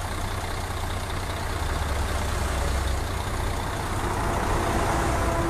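Heavy vehicle's diesel engine idling, a steady low rumble, amid motorway noise.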